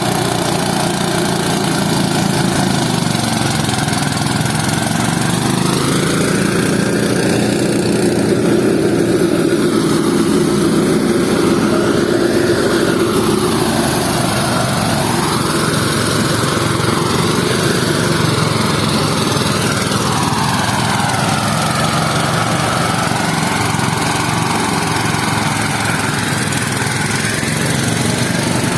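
Small engine of a harvest-field machine running continuously, its pitch dipping and rising every few seconds.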